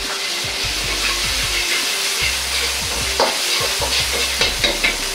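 Doubanjiang and ginger sizzling in hot oil in a wok while a metal ladle stirs them, scraping and clinking against the wok, with a few sharper clinks in the second half.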